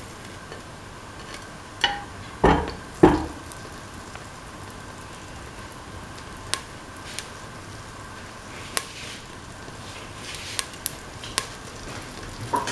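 Cooking oil heating in a stainless steel pan: a low steady hiss with scattered sharp ticks and pops as it begins to spit. There are a few knocks about two to three seconds in.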